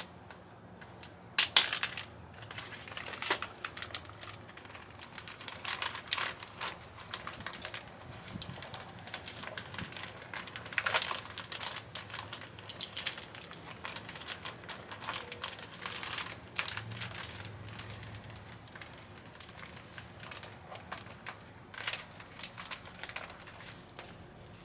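Plastic bag crinkling and crackling as it is handled, with scattered sharp clicks and rustles. The loudest burst comes about a second and a half in.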